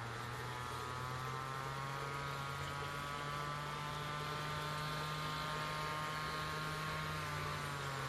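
Steady machine hum with a higher whine above it; the whine's pitch drifts slowly and falls a little near the end.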